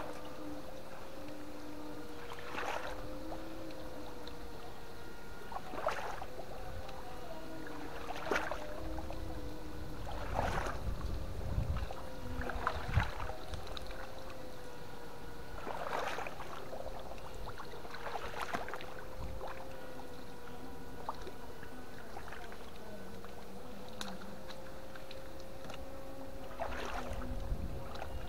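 Water splashing every two to three seconds, as of someone wading or working a net or paddle in a river. A steady, slightly wavering whine runs underneath.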